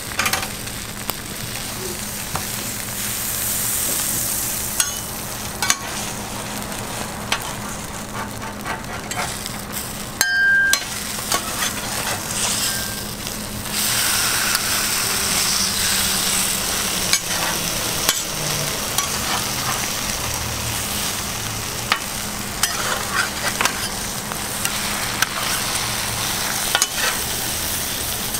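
Egg batter and toppings sizzling steadily on a flat-top griddle, with metal spatulas scraping and tapping on the steel plate in short sharp clicks.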